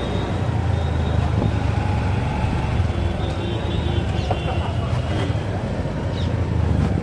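Motorcycle engine running under way with street traffic noise around it, a steady low rumble throughout. A few faint short high squeals sound over it.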